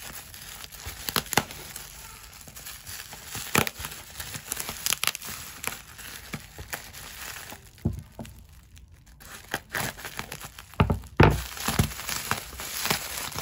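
Plastic packaging crinkling and tearing as a black plastic mailer and clear plastic wrap are pulled open by hand. Irregular rustles and sharp crackles, with a short lull about two-thirds through and the loudest rustling just after it.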